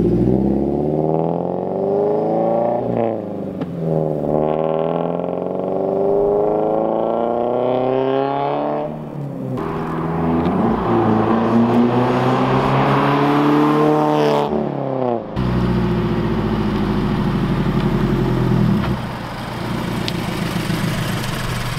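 Subaru BRZ's flat-four engine through a straight-piped, valved center-exit exhaust, accelerating hard in drive-bys. The pitch climbs, drops at each gear change and climbs again, over several passes.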